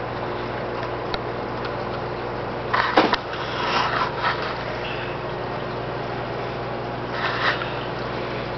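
Steady electric hum of a saltwater aquarium's pumps, with a sharp knock about three seconds in, a brief rustle after it, and another short rustle near the end.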